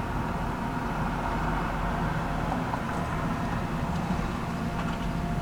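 Hydraulic excavator's diesel engine running steadily, with a constant whine over it.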